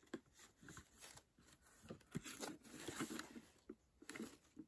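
Faint rustling, light scraping and small irregular knocks from a bamboo lunch box and its cardboard packaging being handled.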